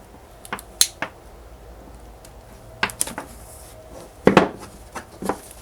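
Handling noise from weaving a paracord bracelet: a few sharp clicks, then a short rubbing swish as the cord is pulled through the weave about four seconds in.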